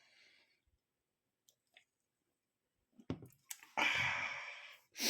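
Ring-pull can of pre-mixed whisky and dry ginger ale being cracked open, about three seconds in: a sharp click of the tab, a few small ticks, then a hiss of escaping gas. A second short hiss comes near the end.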